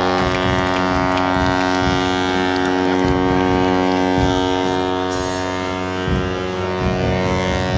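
Ship's horn sounding one long, steady blast of deep, rich tone, stopping near the end. It is a salute to a ship sliding down the ways at its launch.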